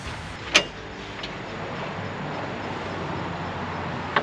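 A Chevrolet Silverado's front grille snapping into its clips as it is pressed home: two sharp snaps, a loud one about half a second in and a smaller one near the end.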